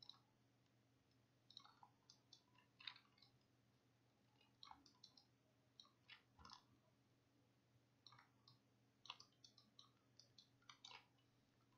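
Faint clicks of a computer mouse and keyboard in small scattered clusters every second or two, over a faint steady low hum.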